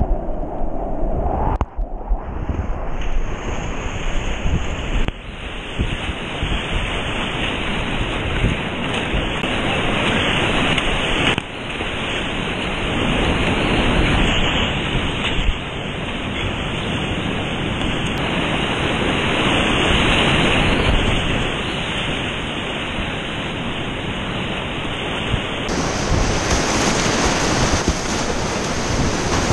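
Whitewater rapids rushing loudly around a kayak, heard close up from a camera on the boat, with waves breaking over the bow.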